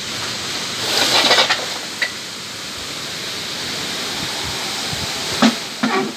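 Strong storm wind rushing through the tree canopy overhead, a steady droning noise with a louder gust about a second in and a few short, sharper bursts near the end.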